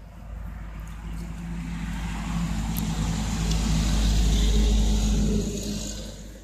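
A motor vehicle passing close by: its low engine hum builds over about four seconds, peaks, then fades away near the end.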